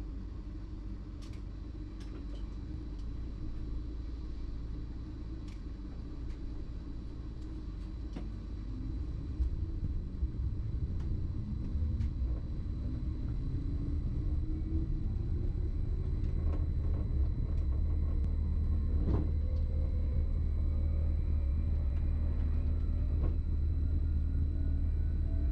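BLS MUTZ RABe 515 electric multiple unit running, heard from the driver's cab: a steady low rumble, with a whine from its traction drive that climbs steadily in pitch from about nine seconds in as the train accelerates. A few faint clicks come through over the rumble.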